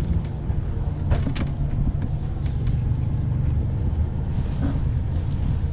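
A sailboat's auxiliary inboard engine running steadily at low revs during a mooring manoeuvre. A couple of brief sharp clicks come about a second in.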